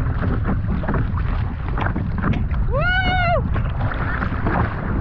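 Wind buffeting the microphone over choppy water, with the splashes of a double-bladed kayak paddle dipping in. About three seconds in, a short call rises and falls in pitch.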